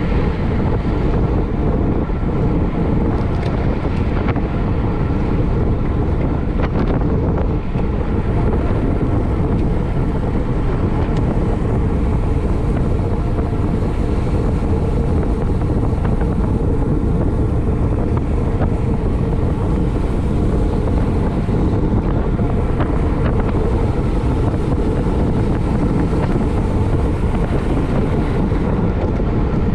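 Steady, loud wind roar on the microphone of a camera moving at race speed on a racing bicycle.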